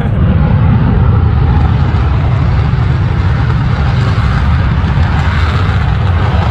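Military fast jet's engines running, a loud steady rumble.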